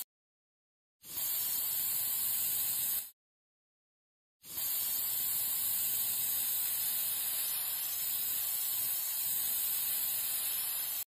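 Aerosol spray-paint can spraying: a steady hiss about two seconds long, then, after a pause of about a second and a half, a longer hiss of about six and a half seconds that cuts off sharply.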